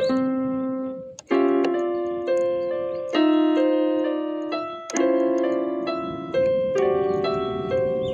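PCM synthesizer keyboard playing slow chords in a piano-like voice. Each chord is struck and left to ring and fade before the next, about every one and a half to two seconds, with a short break about a second in.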